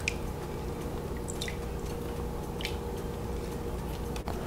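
Faint wet squishes and a few small drips as soaked crayfish are scooped by hand out of a bowl of water, over a faint steady hum.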